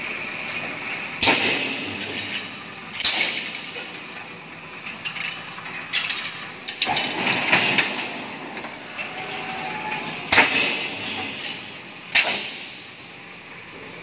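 Crimped-wire mesh welding machine running, with a sharp mechanical clank every few seconds as it cycles, over a steady background noise.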